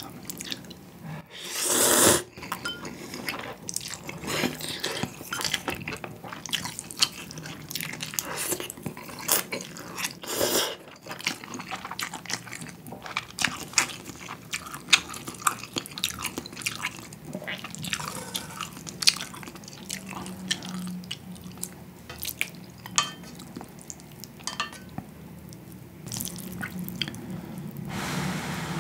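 Close-miked eating of ramen noodles from budae-jjigae (army stew): loud noodle slurps about two seconds in, about ten seconds in and near the end, with wet chewing and many small clicks in between.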